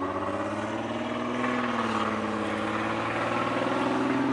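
A motor vehicle's engine running steadily, its pitch drifting slowly up and down.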